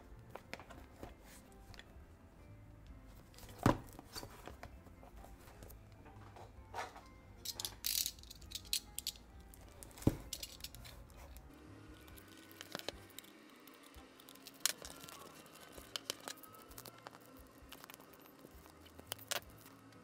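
Plastic shrink wrap on a cardboard box crinkling and tearing as it is handled and slit with a utility knife, with scattered sharp clicks and taps. The loudest clicks come a few seconds in and about halfway through.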